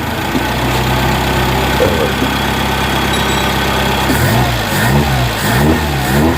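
An engine idling steadily, then from about four seconds in revved in quick blips, its pitch rising and falling again and again.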